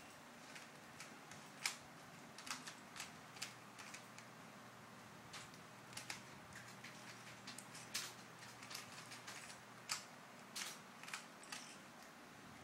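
Plastic Rubik's cube layers being turned by hand: irregular sharp clicks and clacks, coming in quick runs of several turns with short pauses between them.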